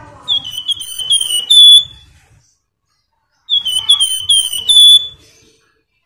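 A flamboyan (Horsfield's babbler) singing two loud phrases of quick, clear whistled notes that slur downward. Each phrase lasts about a second and a half and ends on a held note, with a pause of about a second and a half between them.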